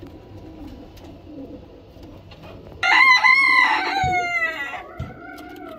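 A rooster crows once, starting about three seconds in: a loud, drawn-out call that falls in pitch and trails off over about three seconds. Pigeons coo softly underneath.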